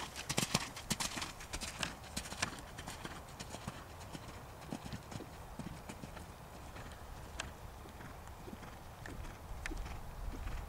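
Hoofbeats of a horse moving at speed over arena footing, loud and close for the first two seconds or so, then fainter and more scattered as the horse moves away across the arena.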